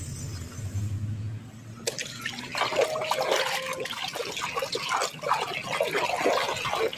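Hands sloshing and splashing a toy around in a basin of muddy water, starting about two seconds in and going on irregularly.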